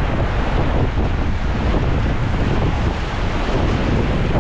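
Steady rush of river water around a paddled raft, with wind buffeting the microphone.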